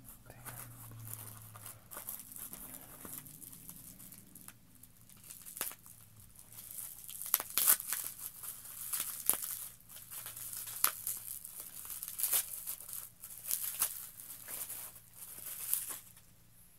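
Clear plastic wrapping crinkling and crackling in the hands as small plastic helmets are unwrapped, in irregular bursts with sharp snaps, busier in the second half and stopping just before the end.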